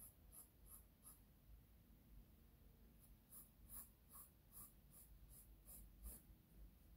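Faint pencil sketching on drawing paper: short scratches of graphite on paper at about three strokes a second. A run of four strokes comes first, then a pause of about two seconds, then a longer run of about eight.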